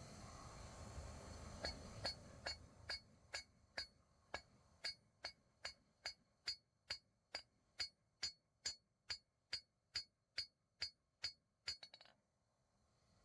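Blacksmith's hammer striking on an anvil in a steady rhythm, about two and a half blows a second, each with a bright metallic ring. It starts about two seconds in and stops about a second before the end, after a quick double blow.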